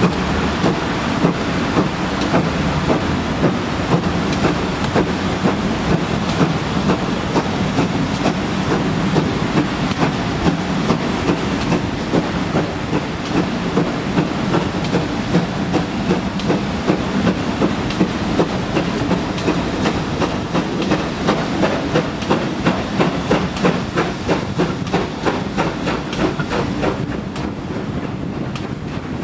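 GWR 28xx class 2-8-0 steam locomotive 3802 working hard while accelerating away from a station, heard from a carriage window behind the engine: a steady run of exhaust beats over a hiss and rolling rumble, the beats quickening from about one a second to about two a second as the train gathers speed.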